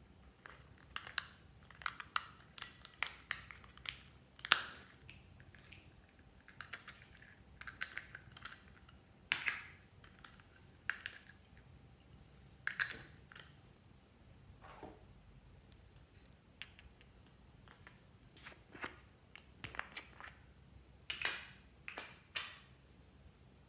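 Slime being squeezed and poked by hand close to the microphone, giving irregular short sticky crackles and clicks.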